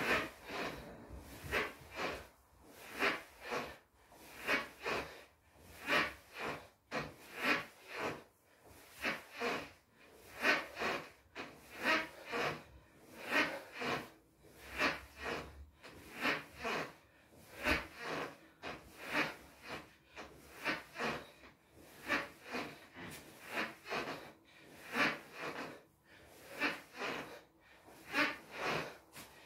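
A boy breathing hard through squats, a noisy breath in and out about every one and a half seconds, in time with each squat.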